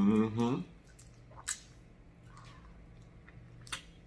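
A short hummed "mm" of enjoyment, then a few wet mouth clicks and smacks as sauce is sucked off a chicken wing bone.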